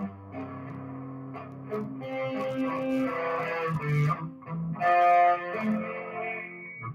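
Electric guitar played live through an amplifier and effects, ringing chords and held notes with a few brief pauses between phrases.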